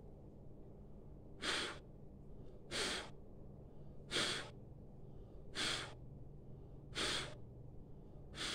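A woman's forceful exhalations in a pranayama breathing exercise: six short puffs of breath, evenly spaced about a second and a half apart.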